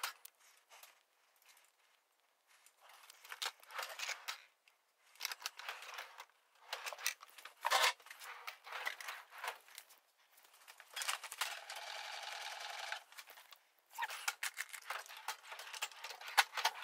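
Metal tool chest drawers sliding open and shut on their runners, with loose hand tools clattering and clinking inside. The clatter comes in irregular bursts, and a little past the middle one drawer makes a steady rolling sound for about two seconds.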